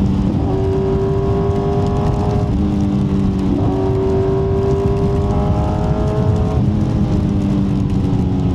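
Kawasaki Z900's inline-four engine through an Akrapovic exhaust, ridden in heavy rain. It makes two long pulls with the revs climbing slowly and falls back after each, about two and a half seconds in and again near the end, over a steady hiss of wind and rain.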